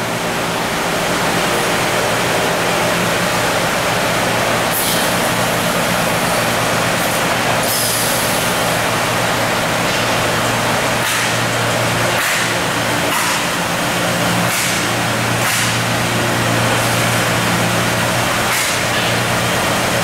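Industrial vacuum-forming thermoformer running: a steady loud machine hum and drone, broken by about eight short, sharp hisses of air as the press cycles.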